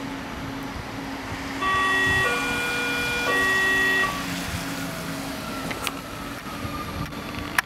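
Light-rail train's two-tone horn sounding a low-high-low call for about two and a half seconds as it approaches the platform, then a slowly falling electric whine as it brakes into the station.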